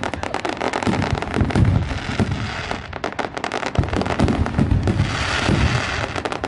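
Fireworks going off in a dense, rapid run of crackling pops and bangs, thinning briefly about three seconds in before picking up again.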